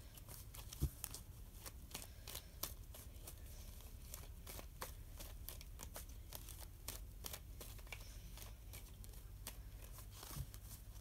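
Tarot cards being shuffled by hand: faint, irregular clicks and rustles of card edges sliding against each other, with one louder tap about a second in.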